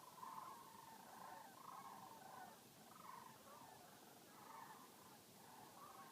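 Faint, distant chorus of many overlapping calls from unidentified animals, which the uploader takes for birds. The calls come as short ragged notes of about half a second, one after another without a break.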